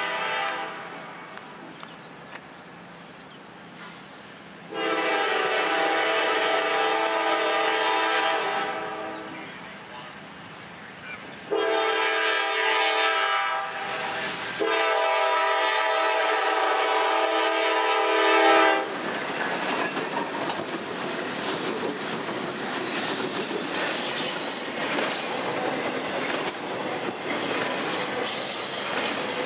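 A diesel freight locomotive's multi-chime air horn blows: the tail of one blast, then a long blast, a shorter one and a final long one that carries up to the locomotive passing, the long-long-short-long grade-crossing signal. From about 19 seconds in, the locomotive and a train of intermodal cars loaded with trailers and containers rumble close by, with wheels clacking over rail joints.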